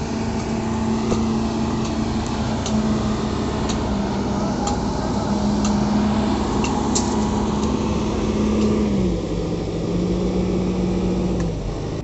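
Self-loading concrete mixer running close by: a steady engine hum that steps down in pitch about nine seconds in, with light clicks scattered over it.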